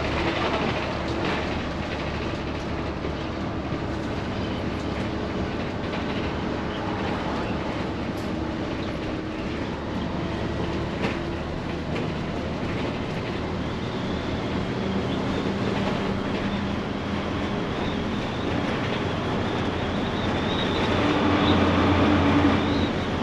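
Ride inside a moving vehicle: an engine hums steadily under a rattling road or track noise, and the sound grows louder near the end.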